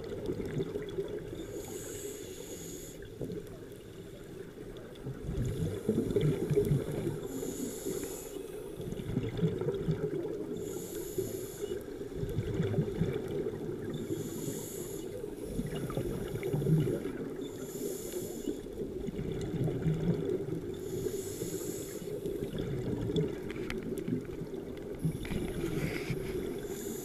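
Scuba diver breathing through a regulator underwater: a short hiss of inhalation about every three and a half seconds, each followed by the low bubbling of exhaled air.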